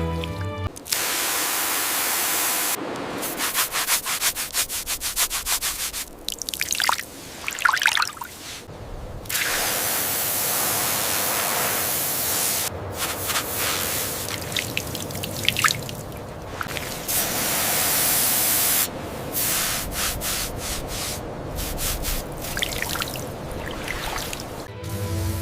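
Cleaning sounds on a metal artifact: a steady hiss like a water or air spray, with scratchy scrubbing and scraping strokes coming and going, broken by several abrupt edit cuts.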